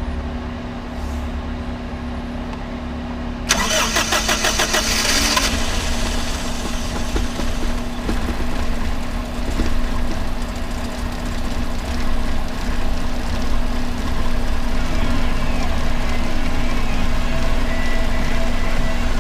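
A 2002 Toyota HiAce van's engine being started: after a steady hum, the starter cranks in rapid pulses for about two seconds, about 3.5 seconds in. The engine then catches and runs steadily at idle.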